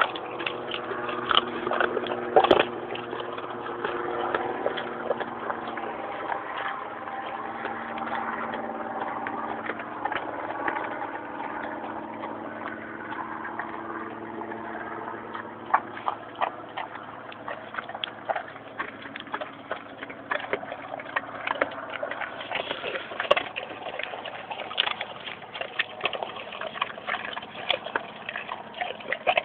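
English Mastiffs chewing chicken carcasses: irregular cracking and crunching of bone, with one loud crack about two and a half seconds in and more frequent crunches in the second half. A steady low hum runs underneath for about the first half.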